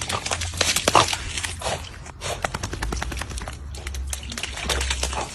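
A rapid, irregular series of clicks and knocks over a low rumble.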